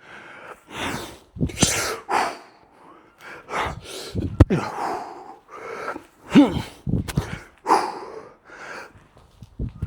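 A man breathing hard through a set of exercise reps: quick, forceful exhales and gasps, about one or two a second, with a couple of short voiced grunts.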